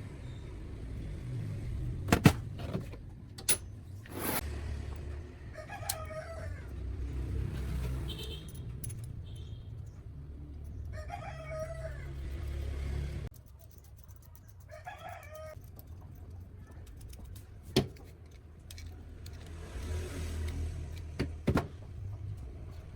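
Three drawn-out pitched calls from a bird, each about a second long, over a low steady rumble, with a few sharp knocks scattered through.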